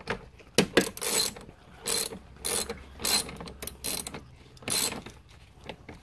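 Socket ratchet tightening a bolt, its pawl clicking in short runs with each back-swing of the handle, about eight runs a half second to a second apart.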